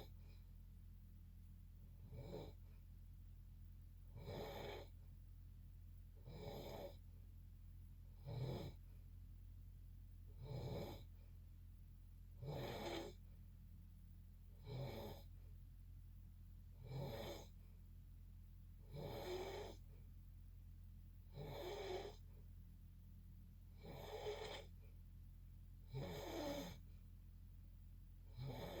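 Steady snoring: a short rasping snore about every two seconds, a dozen or so in a row, over a constant low background hum.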